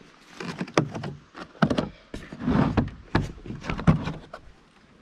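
Handling noises as the electronic stethoscope kit is taken out to be shown: a string of sharp clicks and knocks with some rustling in the middle, like a case or packaging being opened and parts lifted out.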